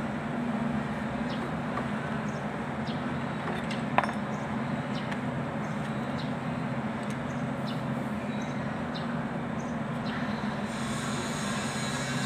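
A steady low machine hum, like a nearby engine running, with faint ticks of hand work and one sharp metallic clink about four seconds in. A high hiss joins near the end.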